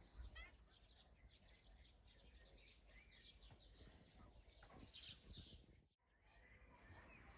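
Faint outdoor background with small birds chirping now and then in short rising and falling notes, and soft clicking and rustling in the middle. The sound drops out briefly about six seconds in.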